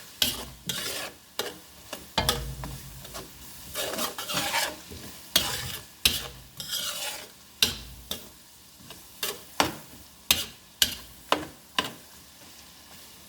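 A utensil scraping and knocking against a frying pan as bacon and onions are stirred, in irregular strokes over a quiet sizzle of frying; the stirring stops near the end.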